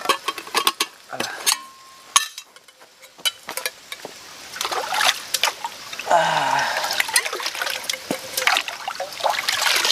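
A few light clicks of metal camping cookware, then water gurgling and splashing as a small metal pot is dipped into a shallow stream and filled.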